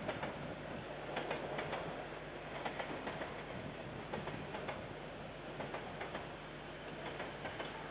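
Wheels of a passing container freight train clicking over rail joints: sharp clicks, often in quick pairs, over a steady rumbling hiss, heard from a distance.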